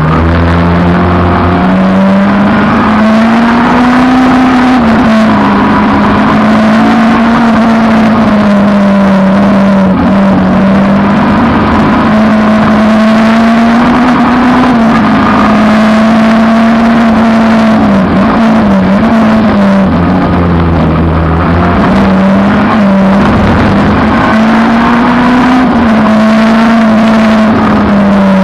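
Peugeot 306 race car's four-cylinder engine running hard at high revs throughout. Its pitch rises and falls gently, with a few short dips as the throttle comes off.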